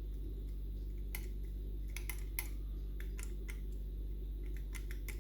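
Faint, irregular metallic clicks and ticks of a homemade lever-lock pick working the levers of a Union Strongbolt lever mortice lock, over a steady low hum.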